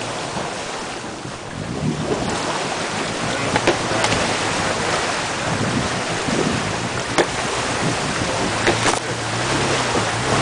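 Toyota FJ Cruiser wading through deep creek water: a steady wash and splash of water against the body, with the low drone of its V6 engine underneath. A few sharp clicks cut through, spaced a few seconds apart.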